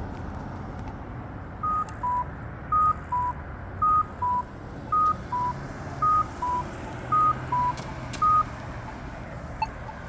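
Polara iNS accessible pedestrian signal push button sounding an alternating two-tone beep, high then low, about one high-low pair a second: seven high and six low beeps starting under two seconds in and stopping near the end.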